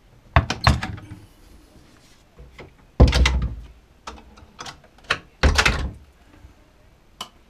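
Wooden cupboard doors being opened and shut: a run of knocks and thuds, the loudest about three seconds in and again around five and a half seconds, with a last sharp click near the end.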